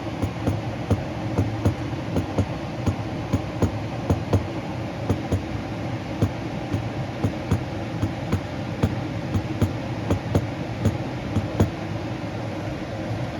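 Furnace draft inducer fan motor running steadily during the start-up purge, before the igniter lights. Sharp ticks about twice a second run alongside and stop near the end.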